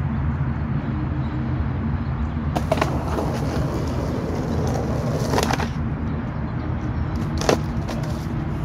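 Skateboard scraping on concrete in two short stretches, then a single sharp clack of the board about seven and a half seconds in, over a steady low hum.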